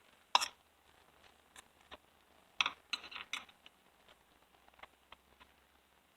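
Small clicks and knocks of chainsaw chain brake parts being handled and fitted onto the saw's crankcase: a single click, then a quick cluster of several about two and a half seconds in, with a few faint ticks after.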